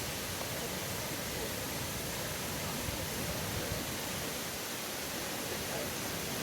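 Twin waterfalls rushing steadily: an even, unbroken noise of falling water with no rhythm or breaks.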